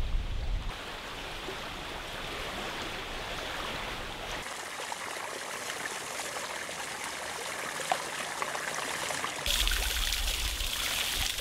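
Water of a small stream trickling and splashing. The sound changes abruptly about four and a half seconds in, and again about nine and a half seconds in, where a louder spray of splashing water begins.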